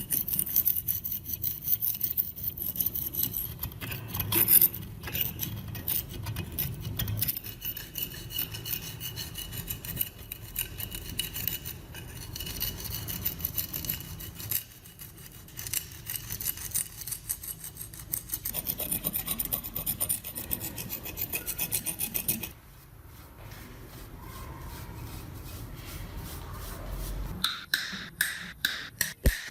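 Rapid back-and-forth abrasive scrubbing on the rusty metal of a manual meat grinder, stroke after stroke, as rust is worked off. About twenty-two seconds in it drops to a quieter, finer rubbing, and near the end a run of regular sharp ticks starts.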